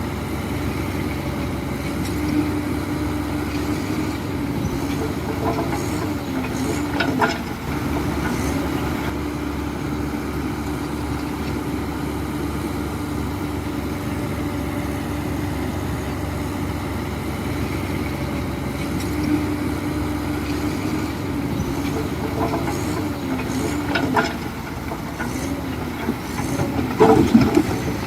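Heavy diesel engine of earthmoving machinery running steadily, its pitch sagging briefly under load a few times, with occasional sharp metal clanks.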